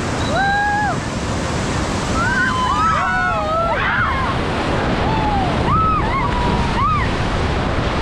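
Whitewater rapids rushing around an inflatable raft, with wind buffeting the microphone. Several voices in the raft shout and whoop, in short held calls, a few times through the run.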